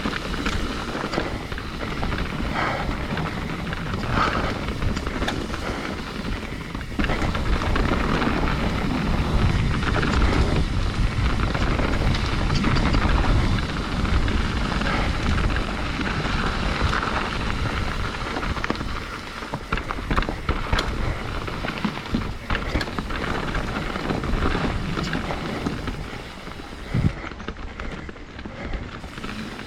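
Mountain bike descending a dirt trail at speed: wind buffeting the microphone and tyres rumbling over the ground, with frequent rattles and knocks from the bike on rough terrain.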